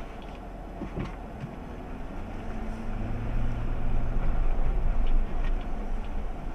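Pickup truck driving along a dirt and gravel track, heard from inside the cab: a steady low engine and tyre rumble that swells and grows louder about halfway through, with a few light knocks.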